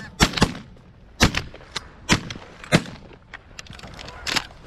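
Several shotguns firing at a flock of geese: about six sharp shots at irregular spacing, two of them in quick succession at the start.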